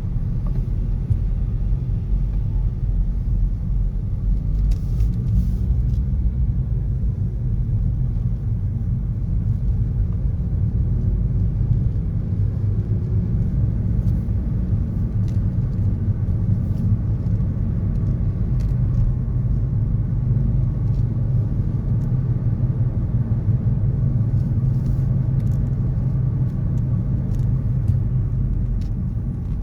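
Steady low rumble of city road traffic, a continuous wash of car noise with no single vehicle standing out.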